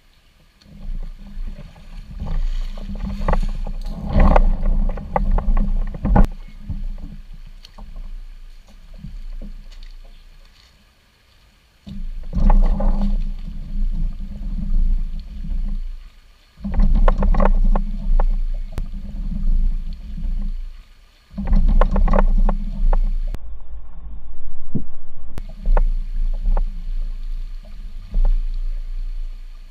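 Jackson Kayak Coosa HD's plastic hull scraping and grinding over the gravel and rocks of a shallow creek bed as it is dragged through the shallows. The grinding comes in stretches of several seconds with short pauses and scattered knocks.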